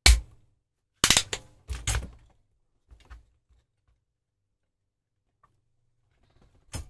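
Sharp knocks and clatter as a clock radio's plastic case and circuit board are handled and set down on a workbench: one knock at the start, a burst of several loud knocks about a second in, a few faint taps, then one more knock near the end.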